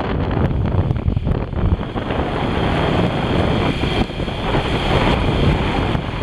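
Wind rushing over the microphone of a moving motorcycle, a steady, loud rumble that buffets without a break.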